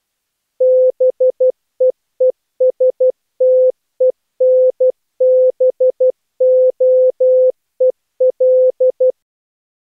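Morse code practice: a single tone of about 500 Hz keyed on and off in a run of short dots and longer dashes, spelling out the day's Morse word. The sending stops about nine seconds in.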